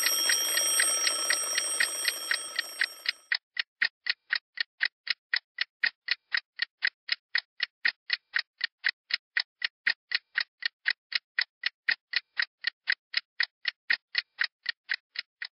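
A clock ticking steadily, about four ticks a second. For the first three seconds a high, steady ringing tone sounds over it, then cuts off suddenly.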